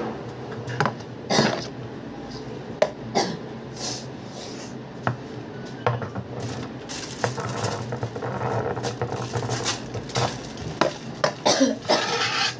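Irregular sharp clinks, clacks and short scrapes from a metal palette knife and cake board knocking against a cake turntable, over a steady low hum.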